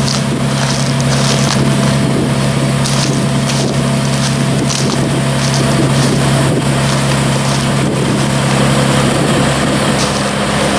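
Heavy harvest machinery running with a steady engine drone, over dense crackling and crunching of dry corn stalks.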